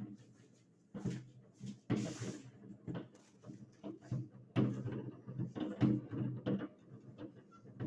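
Fireworks going off: an irregular series of sharp bangs and cracks, with a brief hiss about two seconds in.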